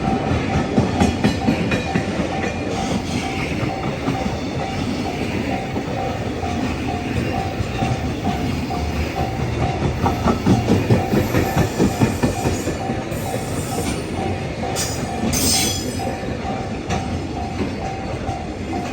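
Japanese railway crossing warning bell dinging over and over at a steady pace while a train rolls through the crossing. Its wheels clack over the rail joints, most sharply about ten to twelve seconds in, with a short high-pitched squeal about fifteen seconds in.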